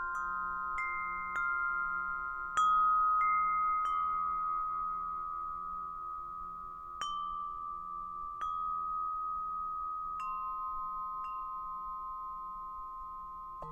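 Gregorian alto wind chime tubes struck at uneven intervals, about ten strikes. Each bright metallic note rings on and overlaps the others over a low, wavering hum.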